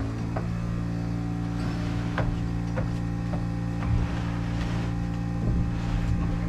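An air compressor's motor starts and runs steadily, with a few light knocks or taps from the roofing work on top.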